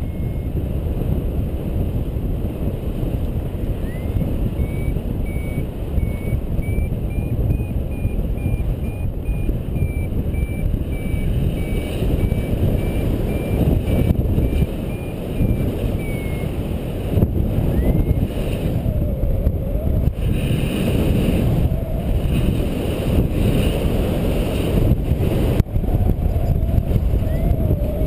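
Wind rushing over the microphone in flight under a paraglider, a loud steady rumble. Over it a paragliding variometer gives a run of rapid high beeps whose pitch rises and falls slightly, the sign of the glider climbing in lift; the beeping stops about halfway through and starts again briefly near the end.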